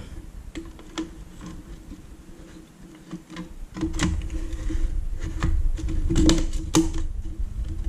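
Irregular sharp clicks and knocks of metal and plastic as an LCD module is handled and pressed into the plastic bezel frame of a Siemens Simatic touch panel, coming thicker from about four seconds in over a low rumble. A faint steady hum sits underneath.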